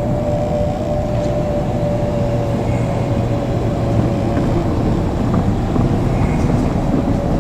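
JR Kyushu 817 series electric train running, a steady rumble with a steady hum.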